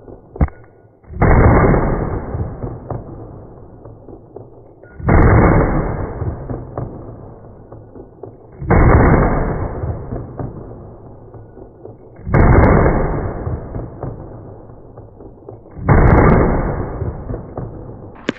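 Pistol shots slowed down and lowered in pitch: five long, deep shots about every three and a half seconds, each starting suddenly and dying away slowly.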